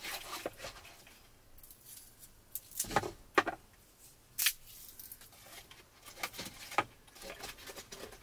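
Light handling noises: a few sharp clicks spread through, with soft rustling between them, as small objects such as a cup are picked up and set down.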